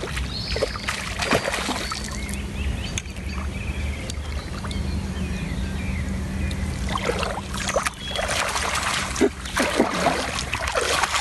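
Steady low hum of a boat's engine at idle, with water sloshing and splashing. A run of sharp splashes and knocks comes in the second half.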